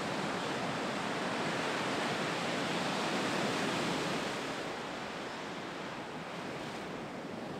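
Ocean surf: waves breaking and whitewater rushing, a steady hiss-like wash of noise that eases slightly about halfway through.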